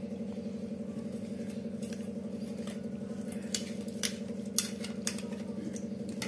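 A hand mixing raw hilsa pieces into mustard paste in a steel tiffin box: soft wet squelching and scraping, with several sharp clicks against the steel in the second half. A steady hum runs underneath.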